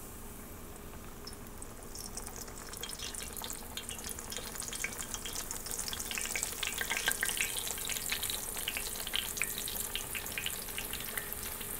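Fry bread dough frying in shallow hot canola oil in a cast-iron skillet: a steady sizzle with dense crackling that picks up about two seconds in and is busiest in the middle.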